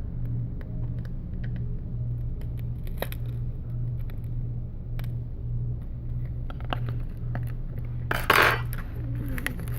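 Small hard clicks and taps of phone parts and tools being handled on a workbench, with one louder scraping rattle about eight seconds in, over a steady low pulsing hum.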